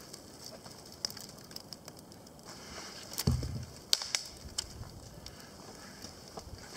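Small kindling fire being coaxed from an ember in a bundle of twigs and dry grass: sporadic light crackles and twig snaps, with a low muffled puff about three seconds in.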